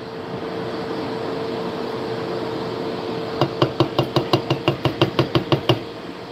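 Steady hum of a running air fryer and microwave. About three and a half seconds in comes a quick, even run of some fourteen sharp taps, about six a second: a spatula knocked against the rim of a metal saucepan of gravy to shake it off.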